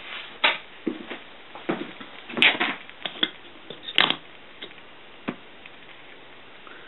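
Scattered light knocks, clicks and rustles from things being handled, over a faint steady hiss. Two sharp clicks stand out, about two and a half and four seconds in.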